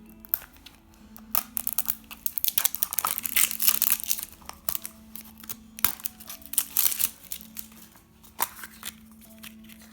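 Squishy-toy wrapper being crinkled and torn open by hand, in two busy flurries of crackling with a few single snaps between. Soft background music runs underneath.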